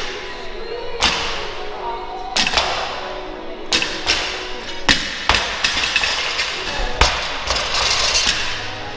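Barbell loaded with rubber bumper plates touching down on the gym floor in repeated deadlift reps: a thud about six times, roughly one every second or so, with music playing underneath.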